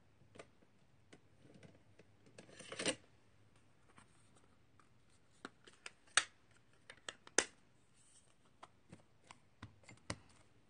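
Rubbing, then scattered small sharp clicks and taps of rubber stamps and ink pads being handled on a tabletop, the two loudest clicks about six and seven seconds in.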